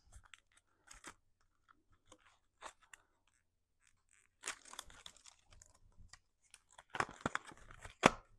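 Clear plastic packaging crinkling and clicking as it is handled, in scattered bursts that grow busier toward the end and finish with a sharp click.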